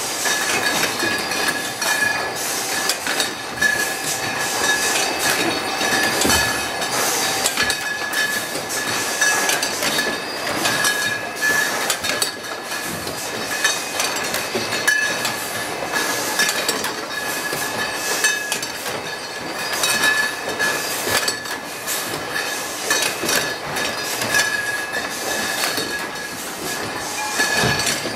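Wine bottling line running: the conveyor and bottle-labelling machine clatter steadily as glass wine bottles clink through it, with a high steady whine that comes and goes.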